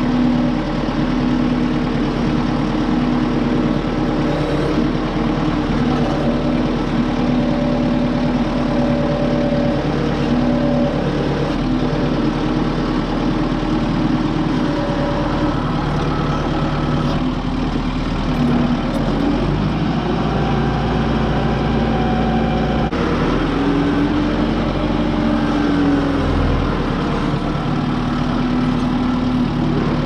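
Kubota M6060 tractor's four-cylinder diesel engine running steadily while the tractor grades dirt. The engine note wavers up and down a few times in the second half.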